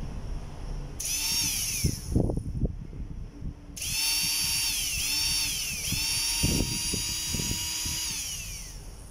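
Salvaged cordless-drill DC motor run on a 12 V supply: a high whine that starts about a second in and winds down in pitch a second later, then runs again from about four seconds with two brief dips before winding down near the end. A few handling knocks between the runs.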